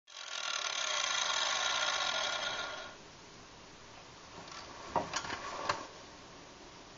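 A 4.5-inch angle grinder with a flat disc grinding down a steel frame rivet head, stopping abruptly about three seconds in. A few sharp metal knocks follow about two seconds later.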